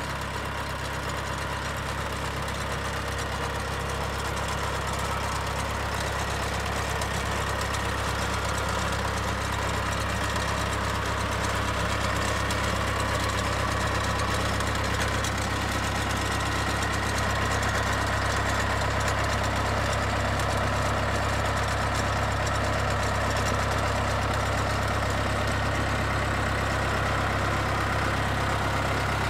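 Yanmar CT-65 rubber-tracked crawler tractor's diesel engine idling steadily, growing slightly louder over the first several seconds and then holding level.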